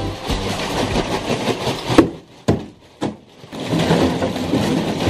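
A plastic bag of ice cubes rattling and crackling as it is handled and torn open over a filling bathtub, with a sharp knock about two seconds in and a couple of lighter clicks after it.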